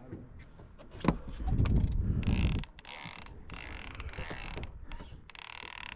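Fishing reel being cranked, a fast run of ratcheting clicks starting about two seconds in as line is wound back in. A knock about a second in and a low rumble before it are louder than the clicking.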